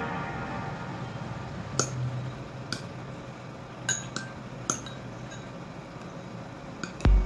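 Metal spoon clinking against a small ceramic bowl while scooping food, about five sharp, ringing clinks spread over a few seconds.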